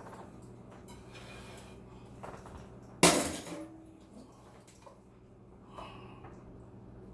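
Kitchenware being handled, with one sharp clink as a dish or pan is set down about three seconds in, ringing briefly after, and a few faint clatters.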